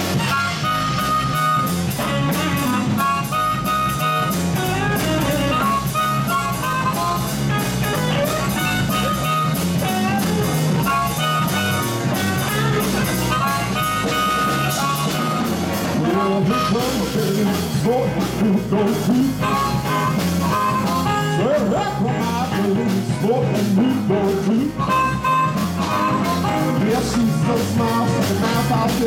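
Live blues band playing: harmonica over electric guitars, bass and drums, with a man singing from about halfway through.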